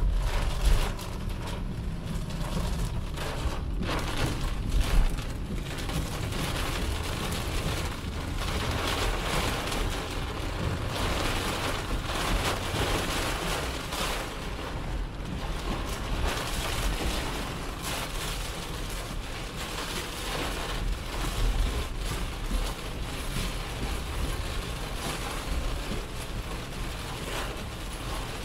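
Heavy rain drumming on a car's windscreen and body while the car drives at speed, with steady tyre and wind noise heard from inside the cabin. It swells louder a couple of times in the first five seconds.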